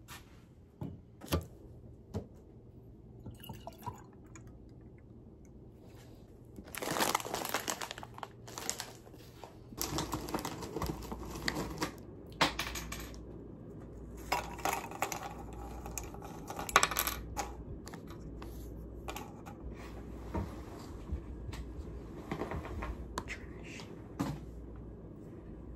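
Clinks of a drinking glass and a spoon, with stretches of pouring as milk goes into a glass and cookies are dropped in.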